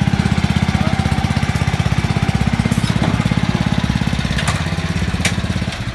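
Pull-started lawn mower engine running steadily with fast, even firing pulses, its drive set to slow. A few faint clicks sound over it.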